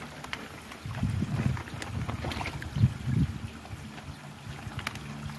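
Low gusts of wind rumbling on the microphone, with light water sloshing and plastic rustling as a koi is tipped out of a plastic bag into a pond. The rumbling is strongest from about one to three and a half seconds in.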